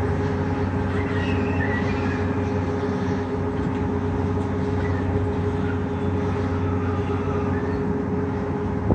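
Heavy construction machinery running steadily: a continuous engine drone with a steady hum.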